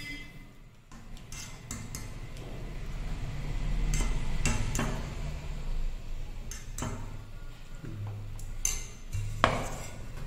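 A steel ladle clinking and scraping against a steel pot and a plate as curry is served, with a string of sharp knocks, the loudest near the end.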